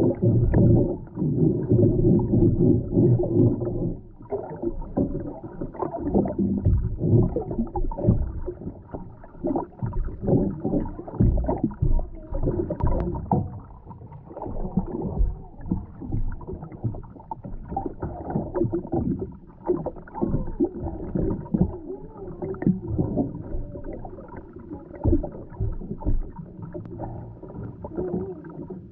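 Muffled underwater sound picked up by a submerged camera in its waterproof housing: water moving with many irregular knocks and clicks, and a steady low hum for the first four seconds.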